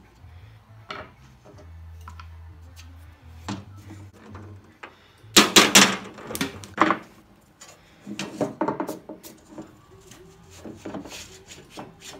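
Metal-on-metal clicks and knocks as a screwdriver and punch work the saw nuts out of an old crosscut saw's wooden handle against the steel blade, with a burst of loud sharp knocks about halfway through and further clusters of clicks after it.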